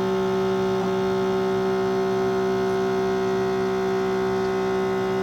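Keurig K-Mini coffee maker's water pump running with a steady electric hum, pumping water through to the brew head.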